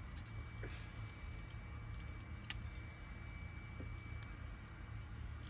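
Small metal lock parts of a Honda door lock cylinder being handled on the bench, with a few faint ticks and one sharp click about halfway through, over a steady low hum.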